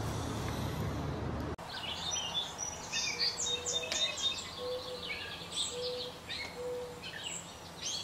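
Outdoor background rumble for the first second and a half, then an abrupt change to a busy chorus of small birds chirping and trilling, with a few soft, low whistled notes repeating about once a second.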